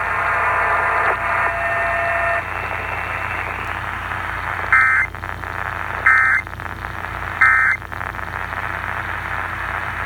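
Emergency Alert System end-of-message data bursts received on AM radio: three short, identical two-tone warbling squawks about a second and a half apart, signalling the end of the alert. They sound over steady radio hiss and static, with a steady whine that fades out in the first few seconds.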